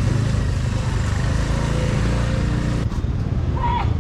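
A motorbike engine running steadily under market street noise. The background changes abruptly about three seconds in, and a short squeaky chirp comes near the end.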